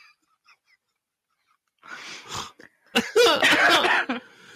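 A person laughing: a short pause, a breathy laugh about two seconds in, then a louder burst of laughter about three seconds in.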